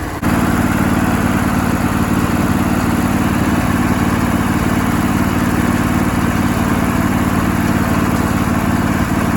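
Old Craftsman mower engine running steadily at a steady speed, after a carburetor clean-out got it running. It gets louder just after the start, then holds an even pitch and level.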